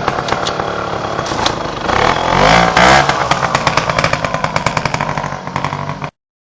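Sherco 125 trials bike's two-stroke engine running with its freshly rebuilt top end (new piston rings and little end bearing). It is revved briefly about two seconds in, then settles back to a fast, even idle, and the sound cuts off suddenly near the end.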